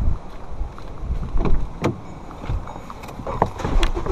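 Irregular knocks, clicks and rustles of a hand-held camera being carried along a ute and into its cab, with wind rumbling on the microphone.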